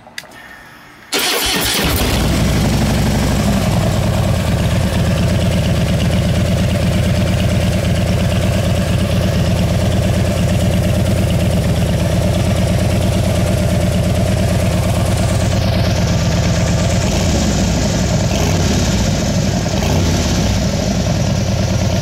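Harley-Davidson motorcycle engine fitted with Vance & Hines 3-inch slip-on mufflers and a Screaming Eagle Stage 1 air cleaner, starting about a second in, then idling steadily and loudly.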